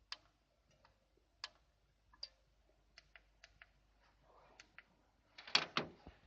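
Scattered light clicks at uneven intervals, then a louder short clatter of handling about five and a half seconds in.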